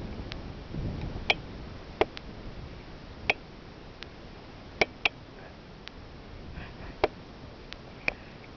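Faint steady background hiss with a low rumble about a second in, broken by sharp, irregularly spaced clicks, about eight of them, two in quick succession near the middle.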